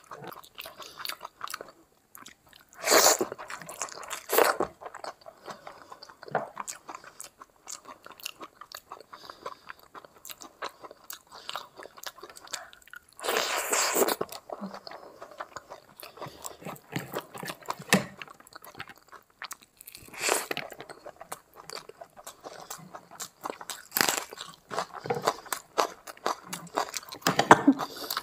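Close-miked eating of rice and curry by hand: steady chewing with wet mouth clicks, broken by loud crunching bites about six times.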